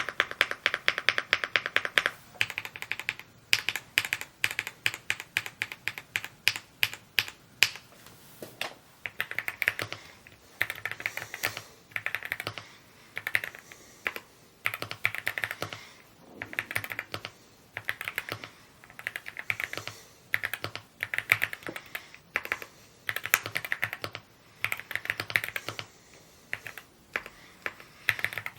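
Typing on a Rainy75 mechanical keyboard: a fast, even run of key clicks for about the first two seconds, then keystrokes in quick irregular bursts separated by short pauses.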